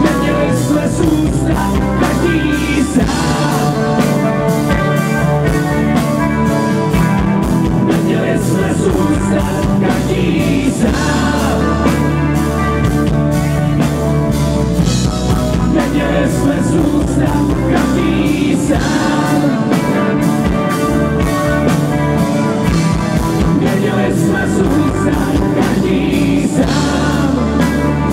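Live rock band playing: men singing over electric and acoustic guitars, with a drum kit keeping a steady beat and bass notes underneath.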